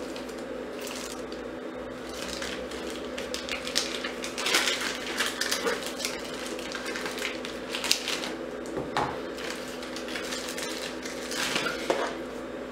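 Clear plastic bag crinkling and rustling in several short bursts as doll boots are handled inside it and taken out, over a steady hum.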